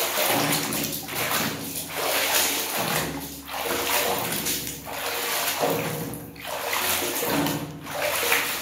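Soapy water sloshing and splashing in a washtub as a toy cement mixer truck is swished and dunked through it by hand, in repeated surges about once a second.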